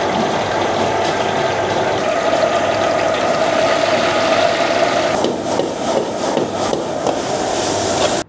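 Kitchen cooking noise: a loud steady roar with rattling, and sharper clattering from about five seconds in, cutting off suddenly at the end.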